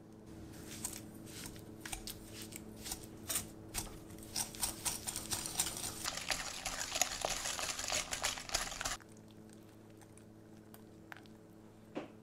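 Wire balloon whisk beating cream cheese and granulated sugar in a glass bowl: quick, uneven scraping and clicking strokes of the wires against the glass. The strokes get busier and louder, then stop abruptly about nine seconds in, leaving a couple of light clicks near the end.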